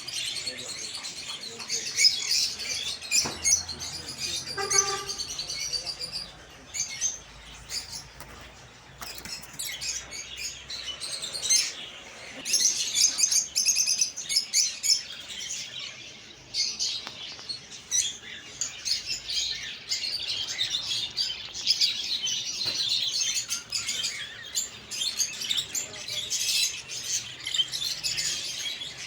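Many small cage birds chirping and twittering together in a dense, continuous chatter, with a brief lower call about five seconds in.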